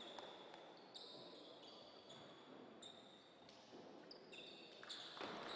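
Faint basketball-play sounds: sneakers squeaking on the court floor in many short high chirps, with one thump, such as the ball hitting the floor, about five seconds in.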